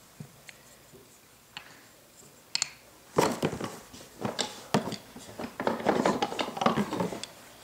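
Packing material rustling and crinkling as a box of wooden toy trains and track pieces is unpacked, with small clacks of pieces being handled. It is faint at first, then a busy stretch of rustling and clicking starts about three seconds in and dies down near the end.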